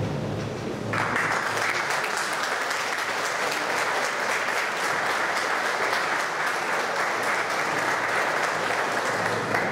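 A roomful of people applauding, breaking out about a second in and keeping up a steady, dense clapping for about eight seconds.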